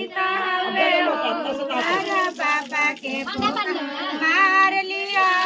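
A group of female voices singing a traditional wedding song together, several voices overlapping.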